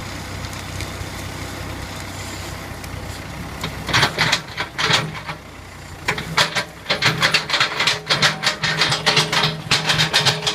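Case 580 Construction King backhoe engine running steadily, then speeding up under load about four seconds in. A rapid, irregular run of loud cracks and knocks follows as the machine works a tree stump out of the ground.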